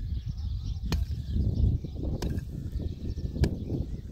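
A short-handled hand pick striking stony soil, three sharp blows about a second and a quarter apart, over a steady low rumble.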